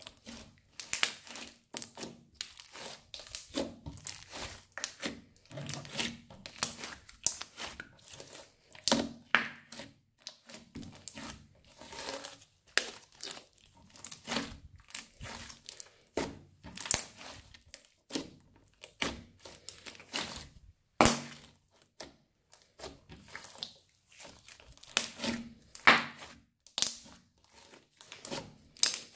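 Crunchy slime being squeezed and kneaded by hand, giving an irregular run of crunching crackles, with a few louder snaps.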